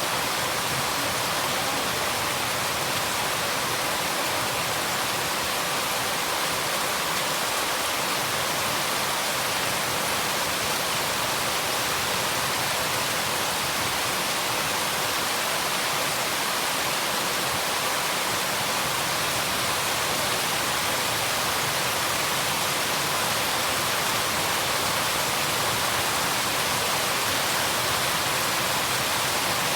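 Steady rain: an even, unbroken hiss with no single drops or other sounds standing out.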